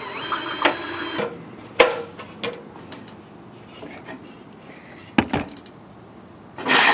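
Hand work on a new aluminium gutter: a short whir of a cordless drill at the start, then a handful of sharp clicks and knocks on the metal gutter and its hangers. A loud, harsh scrape begins near the end.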